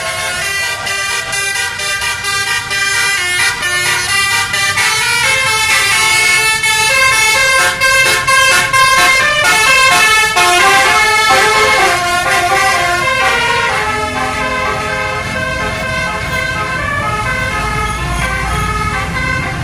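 Basuri telolet musical bus horn playing a tune: a run of loud horn notes stepping from one pitch to the next, some held and some quick.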